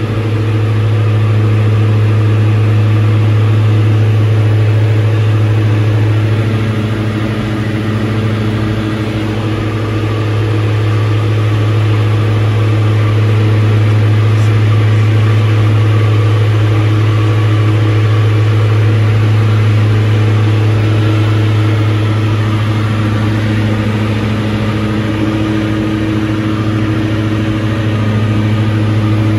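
Diamond DA62's twin turbo-diesel engines and propellers droning steadily in flight, heard inside the cabin as a strong low hum with a slight slow rise and fall in loudness.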